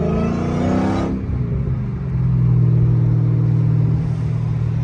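Dodge Hellcat's supercharged 6.2-litre HEMI V8, heard from inside the cabin, accelerating with a rising pitch for about a second, then dropping off and settling into a steady drone while cruising. With its exhaust just repaired, it actually sounds like a normal car.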